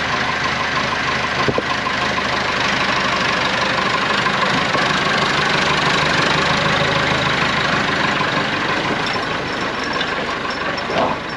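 Tractor engine running steadily while loading or scraping muck.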